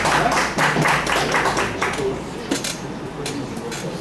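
Audience applauding, dying away about halfway through into a few scattered claps and murmuring voices.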